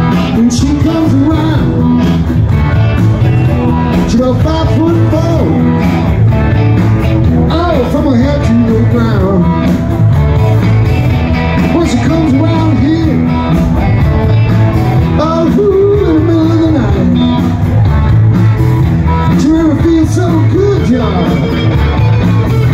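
Live rock band playing loud through stage PA speakers, electric guitars to the fore, with wavering melodic lines in the middle and near the end.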